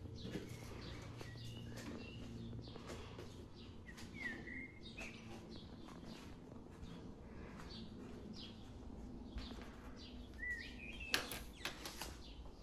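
Faint clicks, taps and knocks of small objects being handled on a wooden desk. The loudest knock comes near the end, and a few short high chirps sound twice in between.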